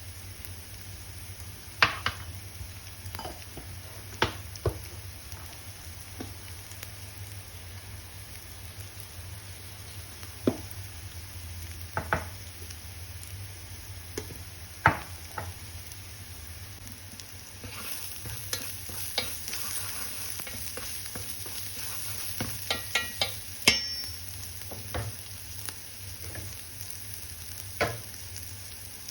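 Food frying in a pan with a steady sizzle, stirred with a spatula that knocks and scrapes against the pan every few seconds. The sizzle grows louder about two-thirds of the way through, followed shortly by a quick run of clicks.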